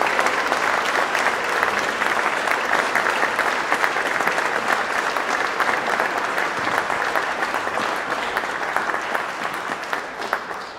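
Audience applauding: dense, steady clapping from a seated crowd, beginning to die away right at the end.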